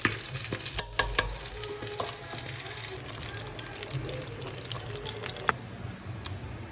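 Vegetables being stirred into a pot of mung bean soup on the stove: a steady hiss with scattered clinks of a utensil against the pot. The hiss drops away suddenly about five and a half seconds in.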